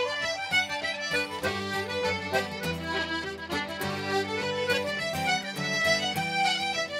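An Irish traditional reel played by two fiddles, a concertina, a button accordion and an acoustic guitar, the accordion and fiddles carrying the fast melody over guitar chords.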